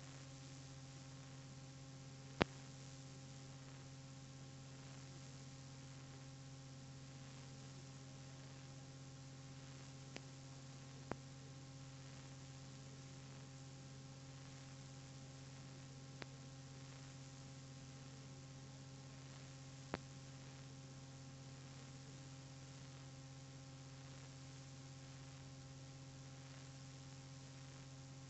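Faint, steady electrical hum with no music or voice, broken by a handful of short, sharp clicks, the loudest about two seconds in.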